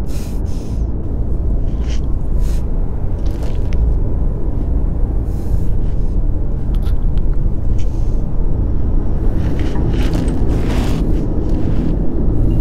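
A loud, steady low rumble, with a few brief hissing swells.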